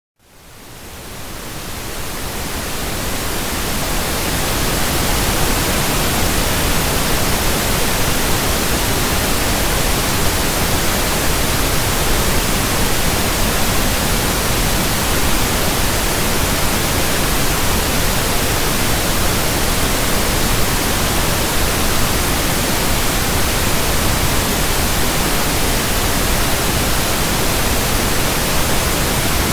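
Synthetic pink noise: a steady, even hiss spread across the whole range, fading in from silence over the first few seconds and then holding at a constant level.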